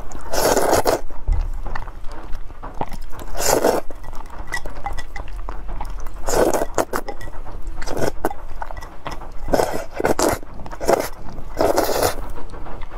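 Close-miked slurping of spicy Korean fire noodles: about six loud slurps, one every two seconds or so, with wet chewing between them.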